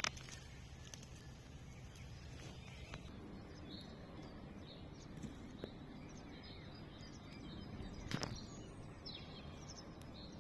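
Quiet outdoor ambience: a low steady rumble with faint bird chirps and a few light knocks, one louder about eight seconds in.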